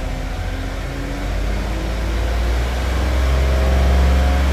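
2015 Cadillac Escalade's 6.2-litre V8 running, getting louder from about a second in to near the end. The scan tool shows a slight misfire on cylinder 7.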